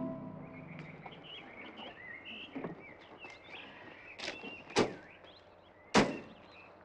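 Birds twittering, with a few sharp clicks and knocks as the door of a vintage open sports car is opened and shut. The two loudest knocks come about halfway through and near the end.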